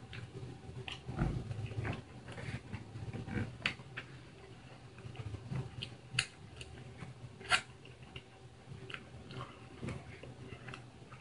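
A man chewing food and making mouth noises: irregular wet smacks and small crunches, with two sharper smacks about six and seven and a half seconds in as he licks hot sauce off his finger.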